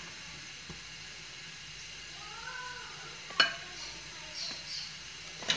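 Steel spoon spreading oil over rolled dough on a wooden board, with a sharp clink a little past halfway and another at the end. A short rising-then-falling cry sounds in the background near the middle.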